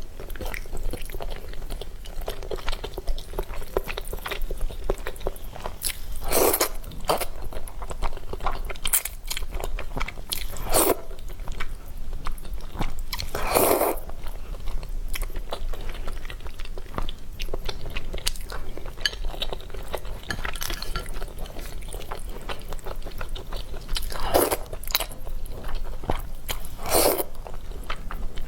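Close-miked mouth sounds of a person eating spicy instant noodles: steady chewing and biting with fine crunchy clicks, and a handful of louder bursts every few seconds.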